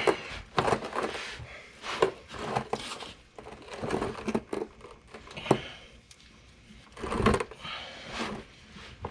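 Socket wrench with a 5/8 socket working the oil pan drain plug loose: irregular bursts of short clicks and metal taps.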